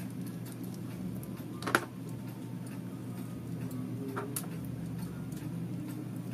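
Small metal clicks and ticks of a precision screwdriver and a small relay's parts being handled during disassembly. There is one sharp click a little under two seconds in and a lighter one a little after four seconds, over a steady low hum.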